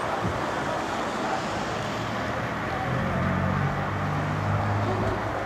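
Train of vintage passenger coaches and steam locomotives rolling slowly past, with a steady rumble and rattle of wheels on the rails. A low steady drone comes in about two seconds in and holds.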